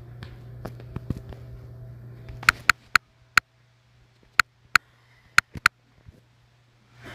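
About eight sharp, short clicks in quick groups, starting about two and a half seconds in: taps on a phone touchscreen while picking a colour and drawing. A steady low hum and background hiss are heard before the clicks begin.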